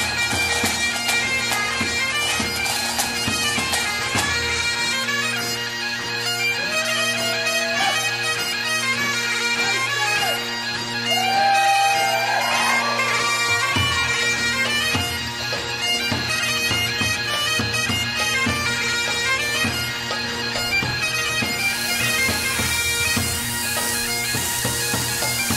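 Bagpipe music: steady drones under a quick, ornamented melody.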